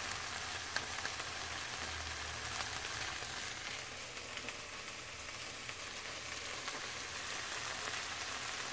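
Beer-battered cod fillets frying in butter in a pan: a steady sizzle with occasional small crackles, in the last few minutes of cooking.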